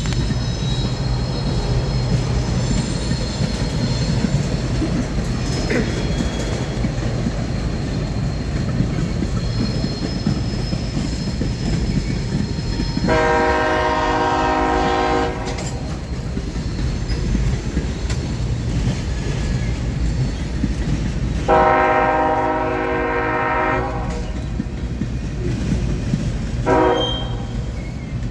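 Train horn sounding two long blasts and one short one, a chord of several notes, over the steady rumble and wheel clatter of a passing CSX freight train. A thin, high wheel squeal is heard at times in the first half.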